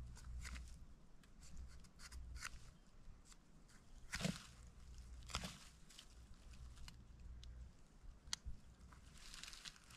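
Scattered crunches and small snaps of someone moving about and handling things, with two louder ones about four and five and a half seconds in. A low rumble underneath stops near eight seconds in.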